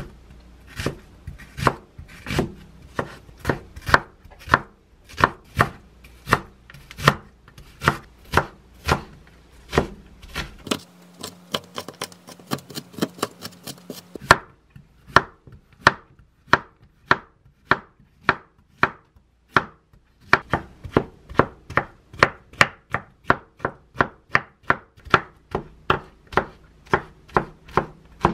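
Chef's knife chopping onion and vegetables on a wooden cutting board: a steady series of sharp knocks, about two a second. In the middle comes a short run of rapid mincing strokes.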